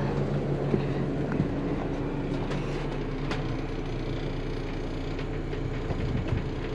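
The twin engines of a Carver 504 motor yacht running steadily at slow harbour speed, not yet up on plane, heard inside the enclosed flybridge, with small rattles and clicks from the fittings.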